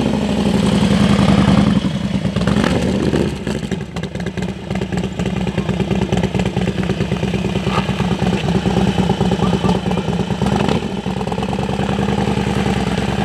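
Harley-Davidson V-twin motorcycle engine running, loudest in the first couple of seconds, then at low revs with a steady pulse as the bike pulls away slowly.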